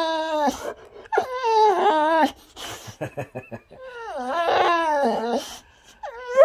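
Boxer dog "talking": drawn-out, wavering whining howls, one after another, with short noisy breaths between them, and another starting just at the end.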